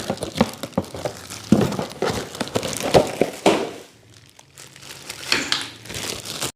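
Packaging crinkling and rustling with scattered small clicks and knocks as caster wheels are unpacked. There is a short lull about four seconds in, then more rustling.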